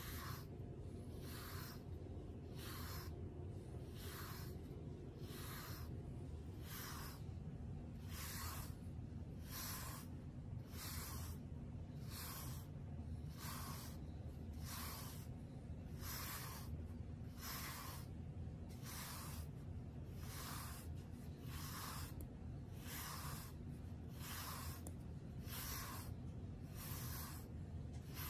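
A grooming brush drawn again and again through a cat's fur, a soft rhythmic scratching swish a little under once a second, over a steady low rumble.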